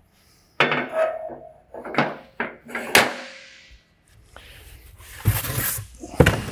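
Heavy steel Siegmund welding-table squares clanking as they are hung on a steel accessory cart: about five sharp metal knocks in the first three seconds, some with a short ringing tone. Then scraping and two more knocks as a larger square is lifted out of a wooden crate.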